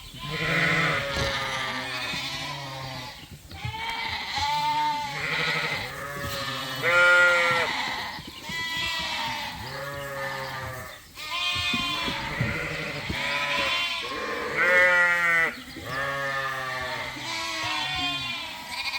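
Many sheep, ewes and lambs, bleating in a barn pen, calls following and overlapping one another almost without a break.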